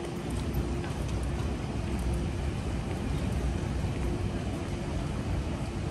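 Wet city street ambience: steady traffic noise and rain hiss with a low rumble, and a faint steady hum throughout.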